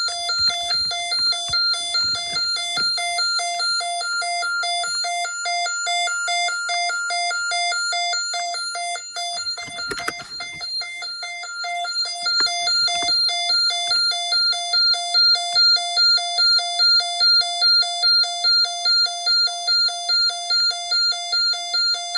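A Snap Circuits fire alarm panel's electronic tone, sounding its supervisory signal as a loud, rapidly pulsing alarm tone. About halfway through the pulsing settles into a clearer beat of about two a second.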